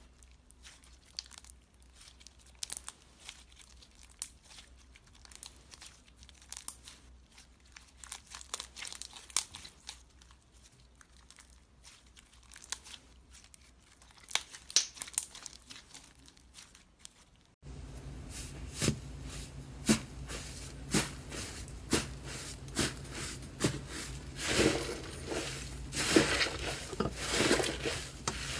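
Slime being squeezed and worked by hand, with many small crackles and pops. About two-thirds of the way through, the sound cuts to louder, denser crackling over a steady low hum.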